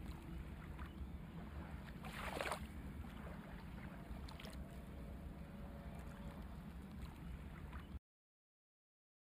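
Faint outdoor background noise, a low steady rumble with a brief soft swell about two seconds in, cutting to dead silence near the end.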